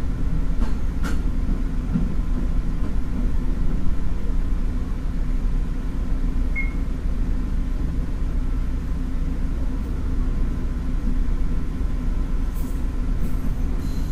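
DRC1000-series diesel railcar running with a steady low engine and wheel rumble as it slows to a stop at the station. A brief high beep sounds about halfway through.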